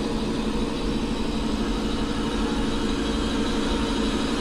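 A steady mechanical hum over a low rumble, with several held tones.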